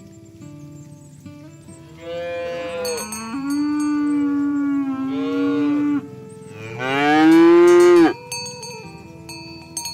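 Cattle mooing: one long, drawn-out moo of about four seconds, then a shorter, louder moo that rises in pitch, ending abruptly near the end.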